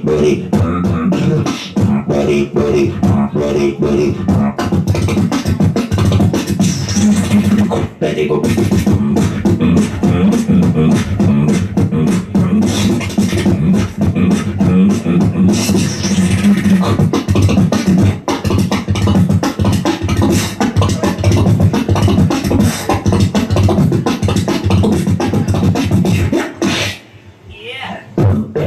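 Beatboxing into a handheld microphone: rapid percussive mouth sounds over a held low bass hum. It stops briefly near the end, then the beatboxing starts again.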